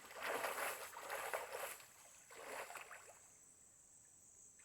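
Water splashing and swishing as a person moves through a creek. There is a longer splashy stretch of about two seconds, then a shorter splash, then only the faint flow of the stream.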